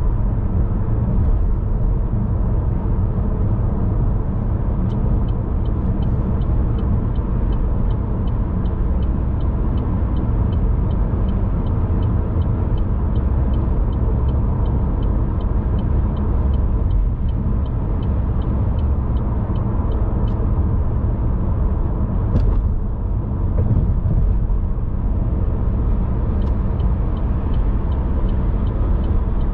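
Car driving at speed, heard from inside the cabin: a steady, low rumble of road and engine noise. A faint, regular light ticking, about two to three a second, runs through much of it.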